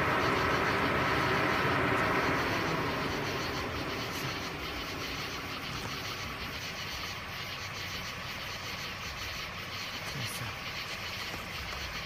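Car engine running close by, loudest for the first two or three seconds, then easing to a lower steady hum.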